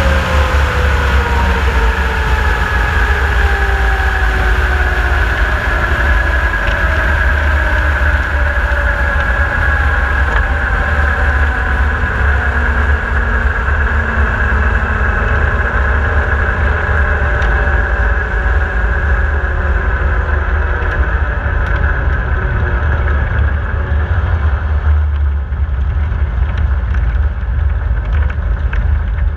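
Drag race car slowing under its parachutes after a run: heavy wind rumble on the onboard microphone and the engine and driveline running, with several whines falling slowly in pitch as the speed drops. The rushing noise thins out near the end as the car rolls slowly.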